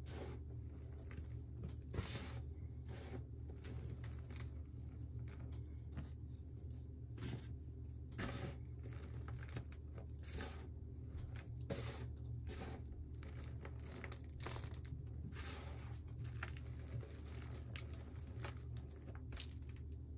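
Fingers crumbling and sifting gym chalk powder: soft gritty crunches and rustles at irregular intervals, over a steady low hum.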